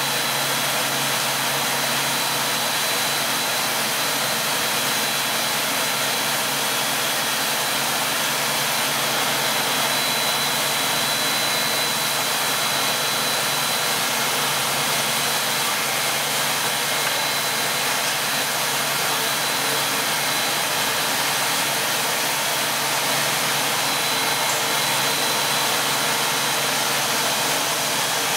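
Two-stage plastic recycling extruder line running: an even machine noise with a thin, steady high whine on top.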